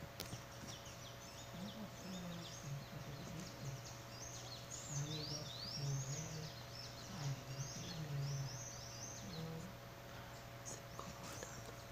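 Faint high chirping calls, a quick run of short rising sweeps through the middle of the stretch, over a steady low electrical hum.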